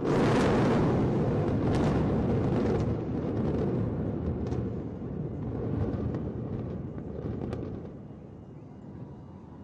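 Two 40-storey concrete towers collapsing in a controlled explosive demolition: a deep rumble that starts suddenly, stays heavy for about three seconds with a few sharp cracks, then slowly dies away.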